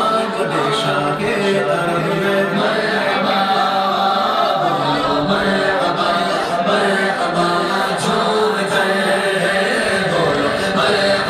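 Group of voices chanting, loud and continuous.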